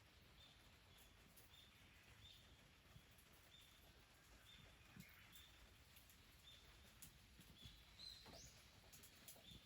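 Faint bird calls: a short high note repeated about every half second, with one rising call about eight seconds in.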